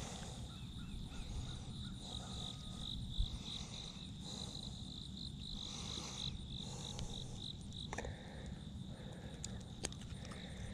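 An insect trilling in a steady, finely pulsed high note that fades about eight seconds in, over a low rumble. A few short chirps and faint clicks sound in between.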